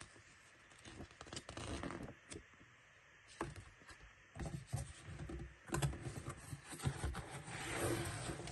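Packaging being handled during an unboxing: irregular scraping and rustling with scattered light knocks, getting busier in the second half.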